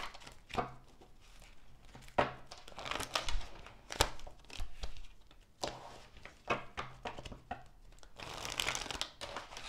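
A deck of tarot cards being shuffled by hand: short papery flicks and slaps of the cards, coming irregularly with brief pauses.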